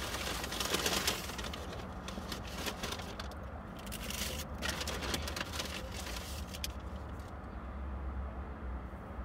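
Low steady rumble of traffic and an idling car, heard from inside the car, with crackling, hissing noise through the first seven seconds or so that then drops away.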